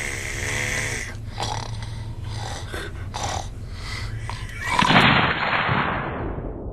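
A man snoring, with irregular short snorts and one loud, harsh snore about five seconds in.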